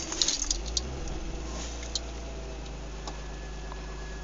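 BMW 325Ci's straight-six engine idling steadily just after starting on the newly fitted starter motor, with a few light clicks in the first second.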